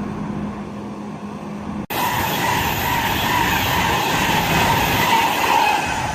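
Class 390 Pendolino electric train passing through at speed: a loud, steady rush of wheel and air noise that starts abruptly about two seconds in, after a brief dropout, and before it a quieter steady hum.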